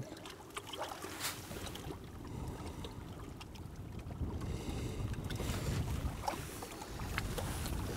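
Low, uneven wind rumble on the microphone, with a few faint clicks and rustles as hands work at the feeder rig.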